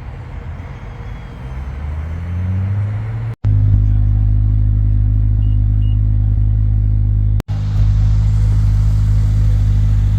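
A car engine running: its low note climbs in pitch over the first few seconds. Then, after two abrupt cuts, a loud, steady, deep exhaust rumble holds at one pitch.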